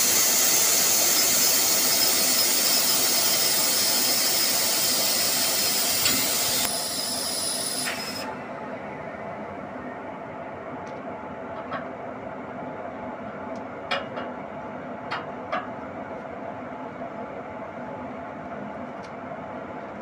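Railway train noise: a loud steady hiss that cuts off abruptly about eight seconds in, then a quieter steady rumble with a few scattered metallic clicks.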